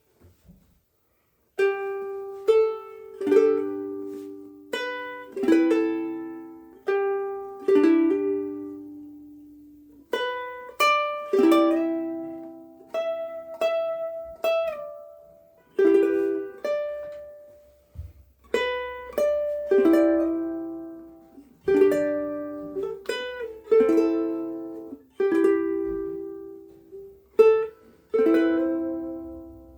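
Oli X1 X-braced mahogany soprano ukulele played solo: plucked chords and melody notes, each ringing out and fading, starting about two seconds in.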